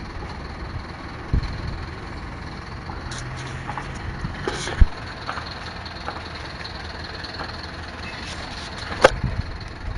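Garbage truck engine idling steadily, with a few sharp knocks, the loudest about five seconds in.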